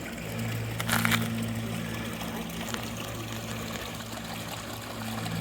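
A steady low motor hum with water trickling or pouring under it, and a brief sharp clatter about a second in.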